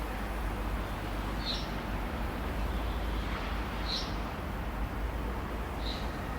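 City park ambience: a steady low rumble of distant traffic under an open-air hiss, with a bird's short high chirp about every two seconds.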